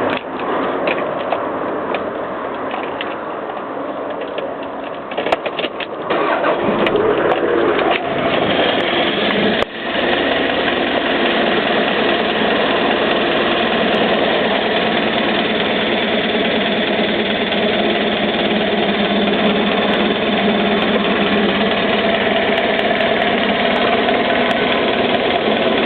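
Toyota MR2 engine running with a horrible noise that the owner thinks comes from the top end, though the cam and followers look fine to him. It sounds rough and uneven for the first several seconds, drops out briefly about ten seconds in, then runs steadily.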